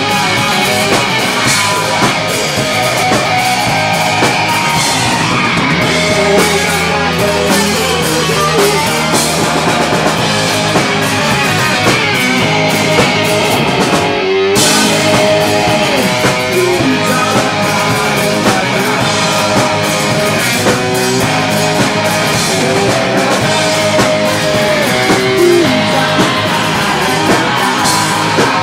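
Rock band playing live with electric guitar and drum kit, a dense, loud passage that cuts out for a split second about halfway through before carrying on.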